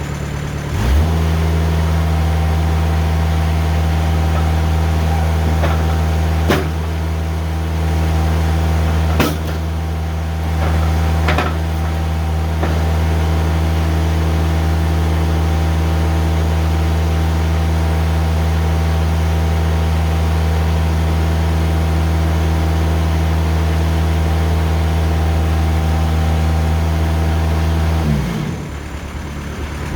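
Diesel engine of a Timberking 2000 sawmill speeding up from idle about a second in and running steadily under throttle, with a few sharp knocks along the way, then dropping back to idle near the end.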